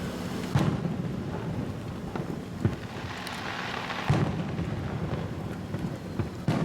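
Aerial fireworks shells bursting in a series of deep booms, the loudest about half a second in, at about four seconds and near the end, with a spell of crackling in between.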